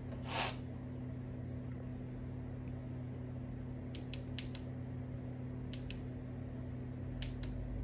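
Sharp switch clicks from the electric scooter's light controls as the headlight is changed between high and low beam: four quick clicks about four seconds in, two near six seconds and two more near the end, over a steady low electrical hum.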